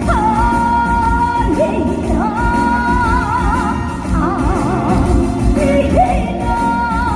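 Female trot singer singing live over a band backing, holding long notes that end in wavering vibrato.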